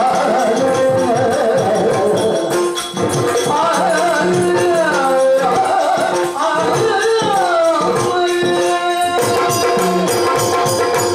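Yakshagana music: a male bhagavata singing a verse with wavering, gliding pitch over a steady drone, with dense strokes on the maddale and chende drums.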